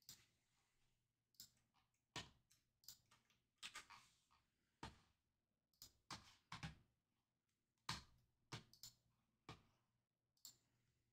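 Faint, irregular clicks of a computer mouse and keyboard, about fifteen spread unevenly, some in quick pairs, as team names are entered into a team viewer.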